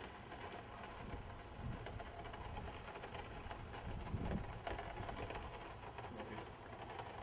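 Low background rumble of the filming space with a few soft low thumps, the strongest about four seconds in.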